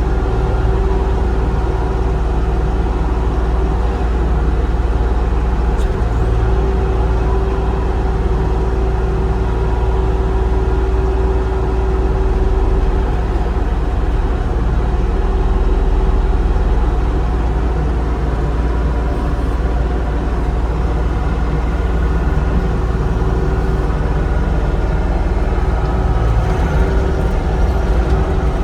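Diesel engine of a 2022 Bobcat E35 R2 mini excavator running steadily at an even speed.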